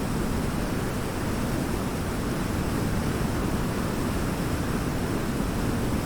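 Waterfall pouring: a steady, unbroken rush of water, strongest in the low and middle range.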